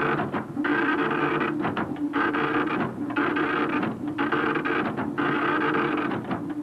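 Instrumental music: a run of held chords broken by short pauses about once a second.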